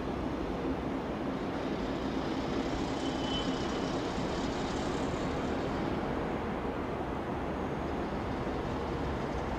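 DB class 218 diesel-hydraulic locomotive running light at low speed, its diesel engine running with a steady hum.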